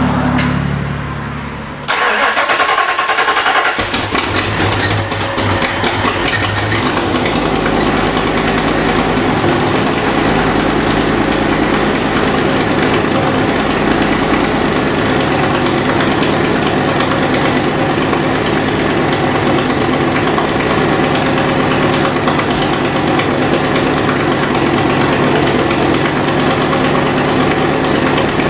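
Ford Fox Body Mustang V8 starting, catching about two seconds in, then idling steadily with a fast ticking over the exhaust note, which the owner takes for an exhaust leak at the headers.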